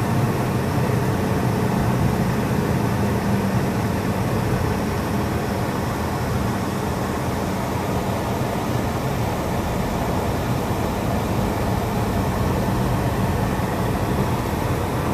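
Steady road and engine noise inside a moving car's cabin, with a low hum that eases slightly a few seconds in.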